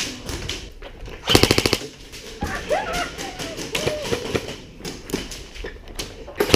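Airsoft gun firing a rapid full-auto burst of about half a second, a little over a second in, with scattered single shots around it and another burst starting near the end. Faint distant voices.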